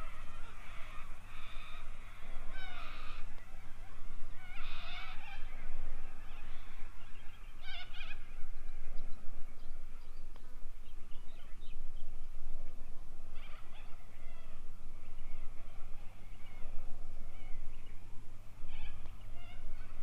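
Birds calling at intervals, short cries strongest about three, five and eight seconds in, over a steady low hum.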